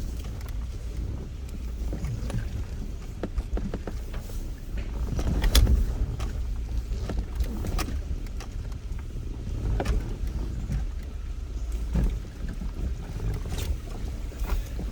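A 4x4 vehicle crawling over a rocky riverbed: a steady low rumble with scattered knocks and bumps, one of the loudest about five and a half seconds in.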